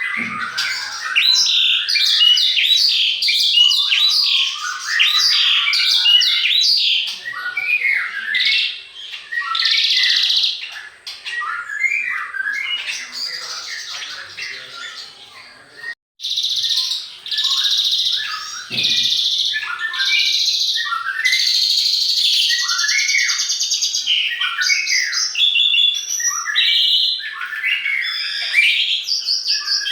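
Many songbirds chirping and singing at once, a dense run of quick tweets and whistled phrases. The sound fades and cuts out briefly about halfway, then comes straight back at full strength.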